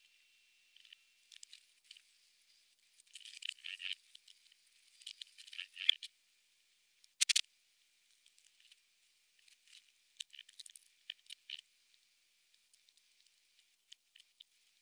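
Praying mantis chewing through a locust's hard exoskeleton: irregular bursts of thin, crisp crunching and crackling, with one sharp crack about seven seconds in.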